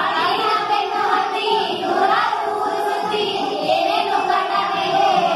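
A group of schoolchildren singing a Kannada song together in unison, holding long notes.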